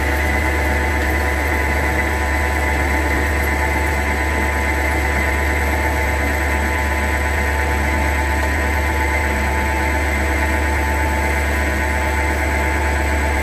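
CNC turning lathe running in its automatic cycle, with the spindle spinning and the tool cutting an aluminium workpiece: a steady low hum with a constant whine above it.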